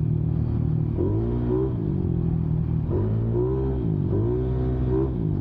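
Motorcycle engine running through a JVT V4 teardrop aftermarket exhaust while riding, its note dipping and climbing several times as the throttle is eased and reopened.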